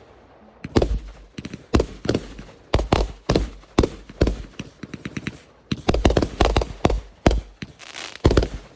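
Fireworks going off: an irregular string of sharp bangs, several a second, with a dense flurry about six seconds in.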